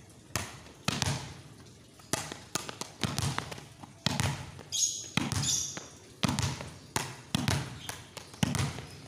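Volleyball slapped down with one hand onto a concrete floor and bouncing back up, over and over, as a wrist-snap drill. The sharp slaps come in pairs about half a second apart, roughly one pair a second.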